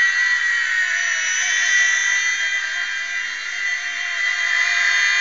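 E-flite Blade mSR micro RC helicopter's small electric motors and rotors running, a steady high-pitched whine whose pitch wavers slightly.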